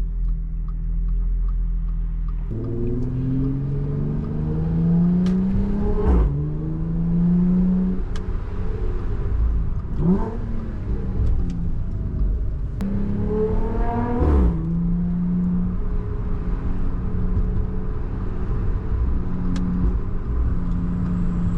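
Supercharged Audi V6 engine pulling through the gears: the revs climb, then drop sharply at each of three shifts. After that it cruises at a steady pitch.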